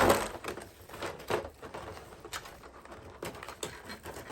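Plastic toy parts and packaging being handled: scattered light clicks and rustles, with a louder knock at the start.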